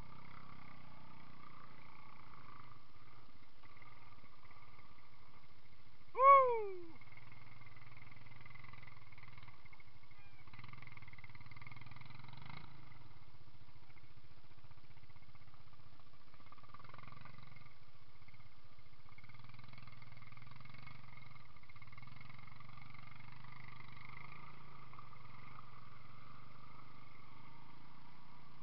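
ATV engines running at low speed through mud, a steady drone. About six seconds in comes one short, loud call that falls in pitch; it is the loudest sound.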